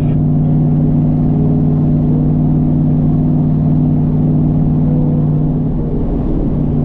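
Car engine and road noise heard from inside the cabin while driving: a steady low drone that eases slightly near the end.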